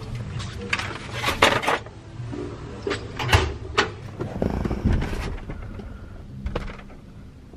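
Metal hand tools (wrenches, pliers) clanking as they are taken out of a rolling toolbox and set down, a scattering of sharp clinks and knocks, busiest in the first four seconds.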